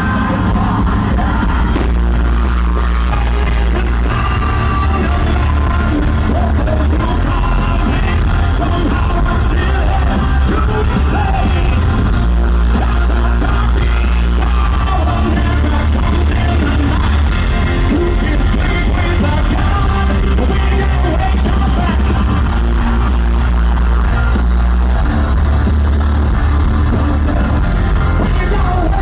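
Loud live hard rock band with a singer, heard through a phone's microphone: heavy distorted bass and drums, with singing and shouted vocals.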